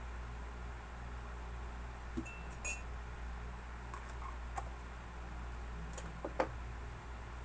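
A few light clinks and clicks of a utensil against a container, coming in three small groups a couple of seconds apart, one with a short ring, over a steady low hum.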